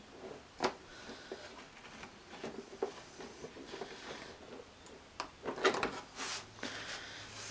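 Packaging being handled and cut open with a hobby knife: scattered small clicks and knocks, with short scraping and rustling, busiest near the end.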